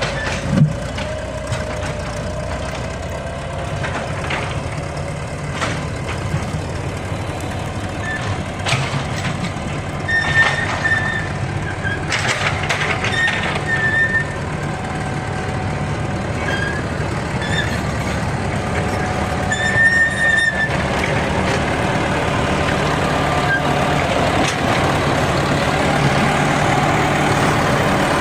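Caterpillar D4E bulldozer working: its diesel engine runs steadily under load, with scattered metallic clanks and a few short high squeals. The engine grows louder in the last third.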